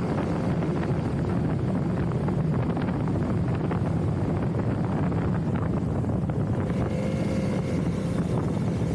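Motorbike riding along at steady speed: engine hum and road noise, with wind rushing over the microphone.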